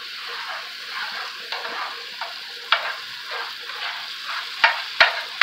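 Shrimp, onions and garlic sizzling in butter and white wine in a nonstick electric skillet as the wine cooks down, stirred with a spatula. The spatula knocks sharply against the pan a few times, mostly near the end.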